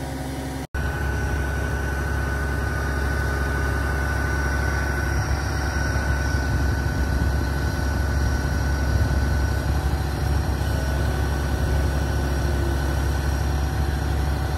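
Truck-mounted crane's diesel engine running steadily while it lowers a septic tank: a low hum with a thin steady whine above it. The sound drops out briefly under a second in, at a cut.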